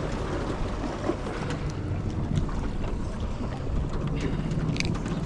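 Wind buffeting the microphone and water sloshing against a small boat's hull, a steady rushing noise with a few light clicks near the end.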